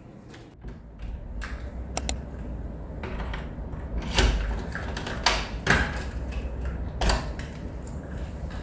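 A handful of sharp clicks and knocks, about five over several seconds, from things being handled, over a low rumble.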